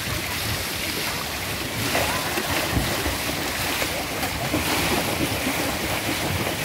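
Pool water splashing and churning as a person slaps the surface with her hands and then plunges in, the splashing getting louder about two seconds in.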